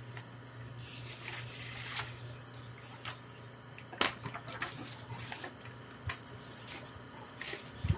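Quiet room tone with a steady low hum and a scattering of small clicks and light knocks, the sharpest about halfway through.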